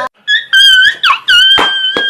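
Meme sound effect: a high-pitched piping tone held as several notes with small pitch dips, broken by short sharp noisy hits.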